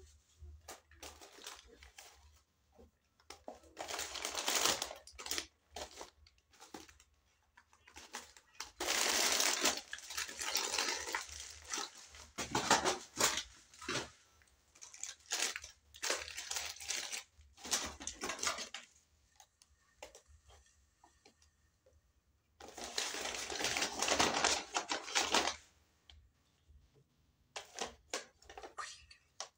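Paper takeaway bags rustling and crinkling as they are handled and folded, in several irregular bursts with short pauses between, over a faint steady low hum.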